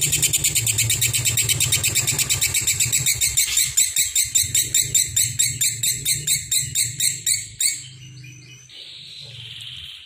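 A lovebird singing a fast, continuous chattering song of high chirps, about six or seven a second. It breaks off about three-quarters of the way through.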